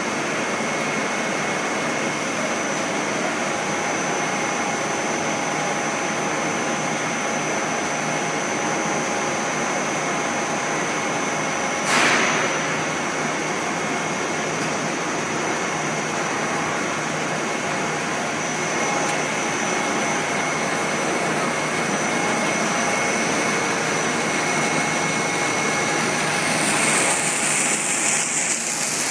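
Snack food extruder running: a steady mechanical drone with constant high-pitched whines over it. A single sharp knock about twelve seconds in, and a rushing hiss swelling near the end as steam pours from the extruder die.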